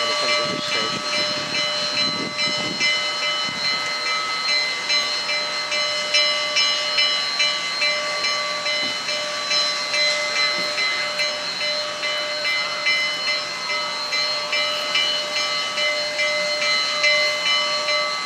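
Union Pacific 844, a 4-8-4 steam locomotive, approaching slowly with its bell ringing steadily, struck over and over at an even rhythm, over a constant hiss of escaping steam.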